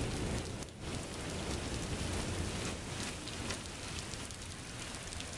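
Rain falling steadily in a thunderstorm, an even hiss with a low rumble beneath it and a brief lull about a second in.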